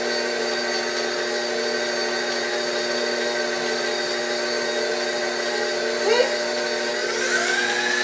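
KitchenAid stand mixer motor running steadily with a whine while it beats cookie batter; about seven seconds in, the speed is turned up and the whine rises in pitch, then holds.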